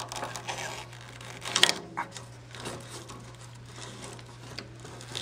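Rubber cogged V-belt being worked by hand onto the jointer's drive pulleys: rubbing and scraping, with a sharper clack about one and a half seconds in, over a steady low hum.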